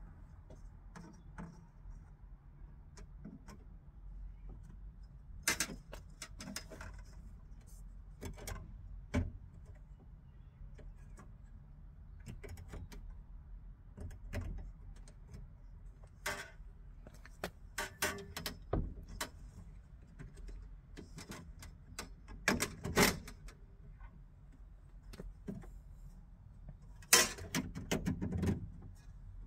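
A new metal window frame being worked into a Fiat 126 Bis door opening by hand: irregular clicks, taps and knocks of metal on metal, with a few sharper knocks spread through, the loudest near the end.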